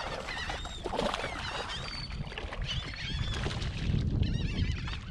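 A flock of birds working over bait, many short high cries overlapping, with a quick run of calls about four seconds in, over a low rumble.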